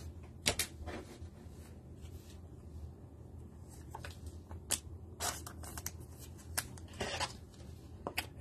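Trading cards and a rigid clear plastic toploader being handled: scattered sharp clicks and a few short sliding swishes of card stock and plastic.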